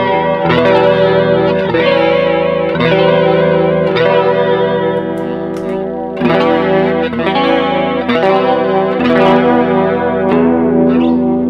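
Electric guitar strumming chords through a vintage analog chorus pedal, a new strum about every second, the tone shimmering with a gentle pitch wobble.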